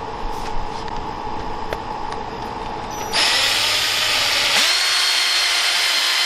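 Power drill with a 1/8-inch bit drilling a pilot hole into a wooden dowel in a door's hinge screw hole. It runs steadily at first, then about three seconds in speeds up and gets much louder.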